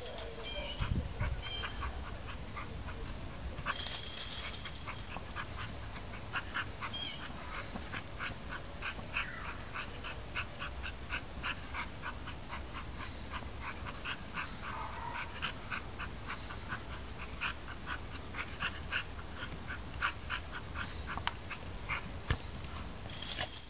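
Small dog giving a long run of short, high yips and whimpers, one or two a second, over a steady low hum.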